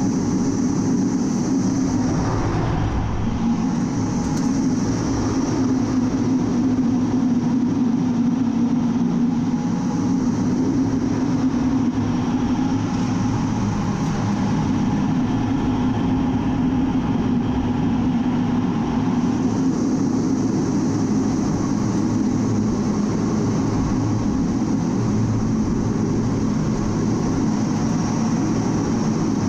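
Steady cockpit noise of an A-10 Thunderbolt II in flight: the twin TF34 turbofan engines and airflow make a constant low roar with a high whine over it, heard from inside the closed canopy. The whine fades for a while and comes back as the jet manoeuvres.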